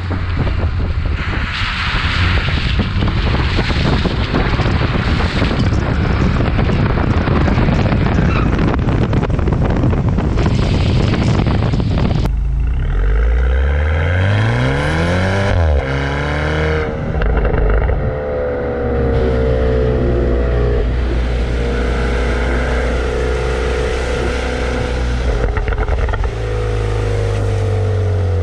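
Wind and spray from a wet road rushing over a camera mounted on a moving BMW. About twelve seconds in, the noise gives way abruptly to the car's engine revving up with a rising pitch, then running at fairly steady revs.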